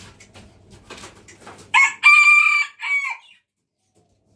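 A rooster crowing once, cock-a-doodle-doo: a short opening note, a long held middle note and a final note that falls away. Faint ticking and rustling come before the crow.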